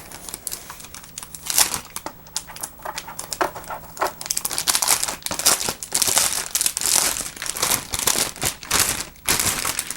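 Plastic packaging crinkling and rustling in irregular handfuls as a keyboard is unwrapped and lifted out of its box.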